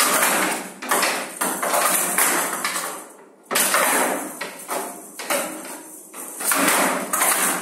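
Showdown ball, a ball with metal pellets inside, rattling as it is hit back and forth with bats across a walled wooden table and bounces off its sides: a string of sharp hits, each followed by a rattle that dies away.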